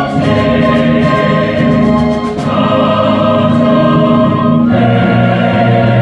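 Large mixed choir singing sustained chords with a string orchestra. The harmony moves to a new chord about two and a half seconds in and again a little before the end.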